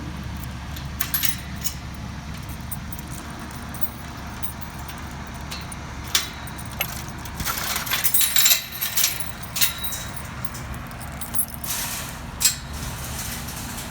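Caterpillar bulldozer's diesel engine running steadily, with sharp metallic clanking and jangling over it that is busiest from about halfway through.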